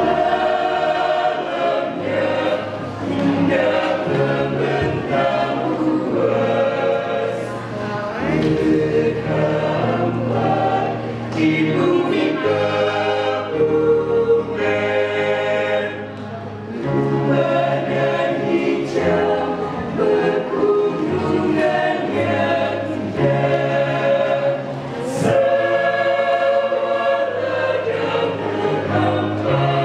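Mixed school choir of girls' and boys' voices singing a hymn in parts, holding full sustained chords that change every second or so over a stepping low bass line.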